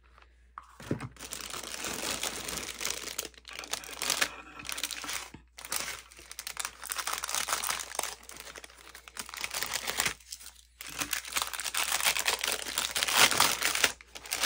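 Clear plastic wrap crinkling and tearing as hands unwrap a silicone mold, in long stretches of crackling with brief pauses about five and ten seconds in.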